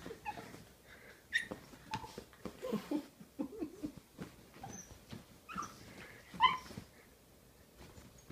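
Puppy making short whimpers and play noises while wrestling with a cat, in brief scattered sounds, the clearest about six and a half seconds in, with blankets rustling under the scuffle.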